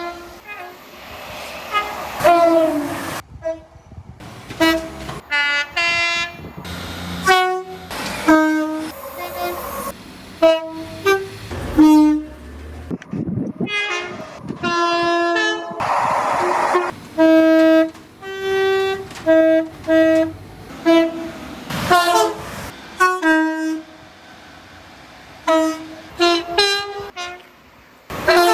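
A rapid series of British passenger train horns, one short blast after another, many sounding two notes of different pitch. The clips are cut together with sudden stops and brief stretches of train running noise between them.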